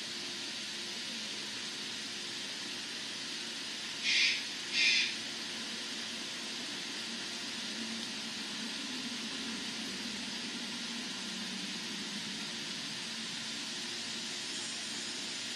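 Steady high hiss, with two short raspy sounds about half a second apart a little after four seconds in.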